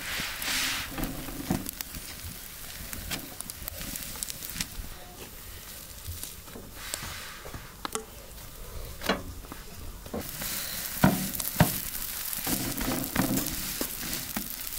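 Flatbread dough sizzling on a hot griddle over a charcoal grill, with scattered soft pats and taps as hands press the round flat.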